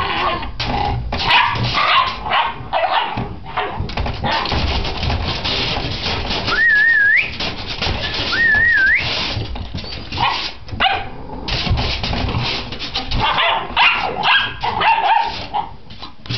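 Puppies yipping and barking over and over, with two high wavering whines, about six and a half and eight seconds in, each rising sharply at the end.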